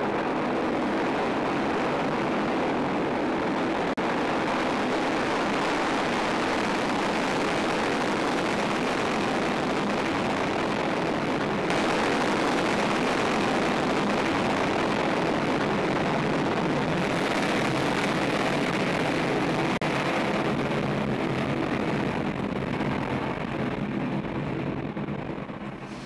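Soyuz ST-B rocket's kerosene and liquid-oxygen engines firing at liftoff and during the climb, a loud, steady, dense noise that fades over the last few seconds.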